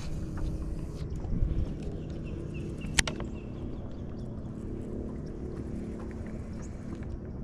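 A steady low mechanical hum, like a small boat motor running, with one sharp click about three seconds in.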